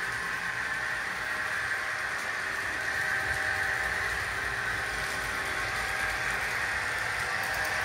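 Model diesel shunting locomotive running on a model railway, giving a steady mechanical hum that gets a little louder about three seconds in.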